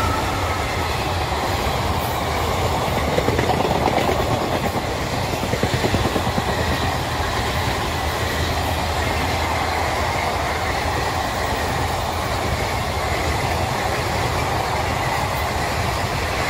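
Electric-hauled passenger train passing at speed: a steady noise of the coaches' wheels running on the rails, with a faint high tone in the second half.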